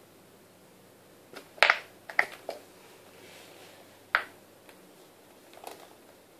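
Small wired bird-shaped cat toy jerking about on a wooden floor, giving sharp plastic clicks and taps in small groups, about a dozen in all.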